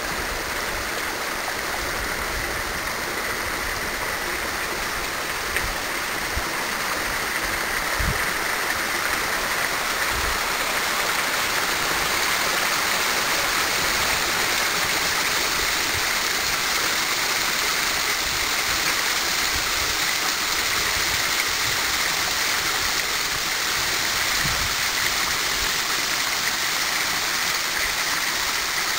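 Steady rush of a stream running over rocks and a small waterfall into a pool, growing a little louder about twelve seconds in.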